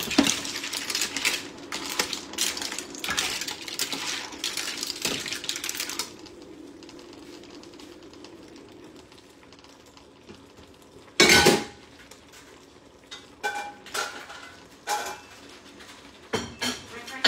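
Metal ladle scooping mussels and clams in a stainless steel pan, the shells clattering against each other and the pan for about six seconds. Later a single loud clank, then several short ringing clinks of kitchenware.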